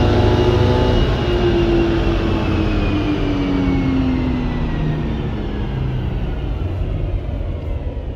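2023 Subaru BRZ's 2.4-litre flat-four, heard from inside the cabin on a chassis dyno: near redline at the top of a full-throttle pull, then about a second in the note starts falling steadily as the engine winds down through the revs. A steady rush of tyre and roller noise runs underneath.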